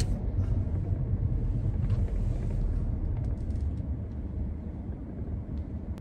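Car cabin noise while driving slowly: a steady low engine and road rumble that eases off over the last couple of seconds as the car pulls in to park.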